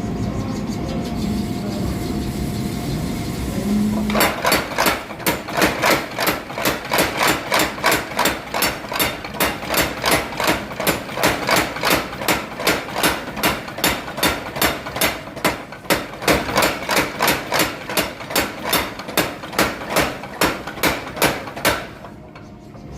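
Little Giant mechanical power hammer forging Damascus steel: after a steady low running hum, it starts striking about four seconds in, in a fast even rhythm of about two to three blows a second, and stops abruptly shortly before the end.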